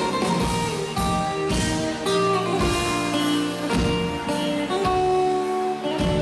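Live band playing an instrumental passage with drums, bass and plucked strings carrying the melody.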